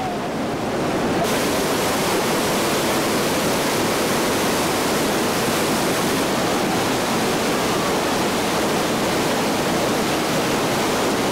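Steady rush of the Iguazu Falls, a wall of water pouring and crashing down, with the hiss growing brighter about a second in.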